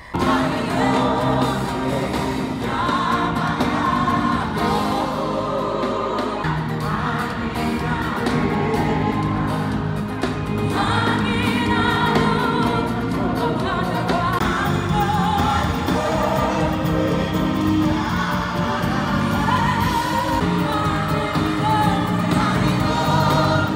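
Gospel music: a choir of voices singing a church song over steady instrumental backing, the sung lines wavering in pitch.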